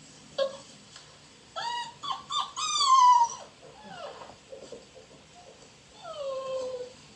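Beagle puppies whining for attention. There is a short whine just after the start, then a run of several rising-and-falling whines about two to three seconds in, the loudest drawn out and falling in pitch, and one long falling whine near the end.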